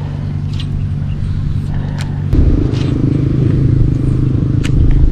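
A motor vehicle engine runs steadily nearby as a low hum, growing louder about two seconds in. A few light clicks sound over it.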